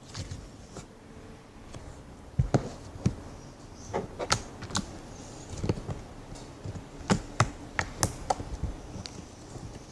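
Slime being squeezed and worked by hand, giving irregular sharp clicks and pops, thickest in the middle of the stretch.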